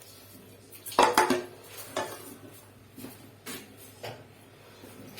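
Metal strainer and pot knocking and clinking together as herbal oil is strained. There is a loud clatter about a second in, then lighter single knocks about every second.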